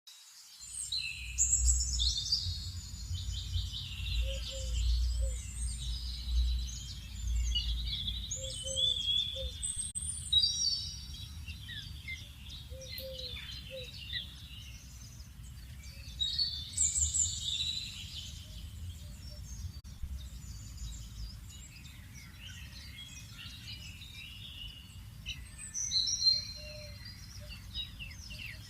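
Several songbirds chirping and singing in overlapping high trills and whistles. A low, short call recurs in groups of two or three every few seconds. A low rumble runs underneath, heaviest in the first eight seconds.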